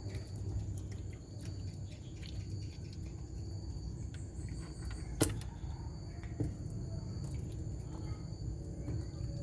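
An animal eating: many small crunching clicks of chewing, with one sharper click about five seconds in. A steady low hum and a faint steady high-pitched tone sit underneath.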